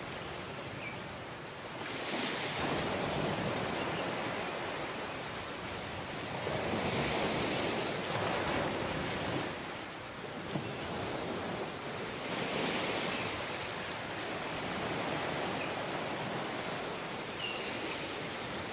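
Waves breaking and washing up on a tropical beach, swelling every few seconds, with a few faint high chirps from birds or insects.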